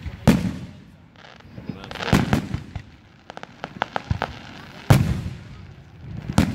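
Aerial fireworks shells bursting overhead: four loud bangs spaced a second and a half to two and a half seconds apart, each with a rolling echo, and a quick run of sharp crackling pops about three to four seconds in.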